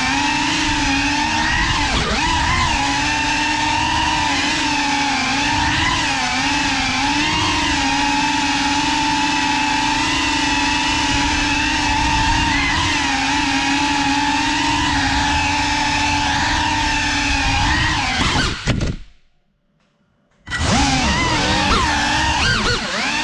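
GEPRC Cinelog 35 ducted cinewhoop's motors and propellers whining, picked up by the GoPro mounted on it, the pitch wavering up and down as the throttle changes. Near the end the sound cuts out for about a second and a half, then returns with the pitch climbing as the motors spool back up.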